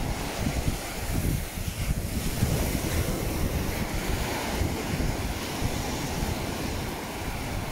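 Wind buffeting the microphone over the steady wash of small waves breaking on a sandy beach.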